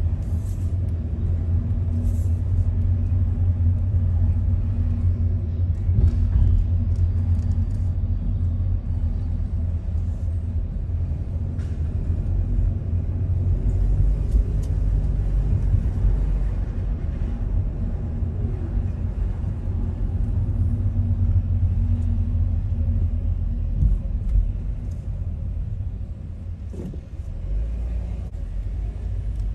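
Road traffic: a steady low rumble of vehicle engines, easing a little near the end.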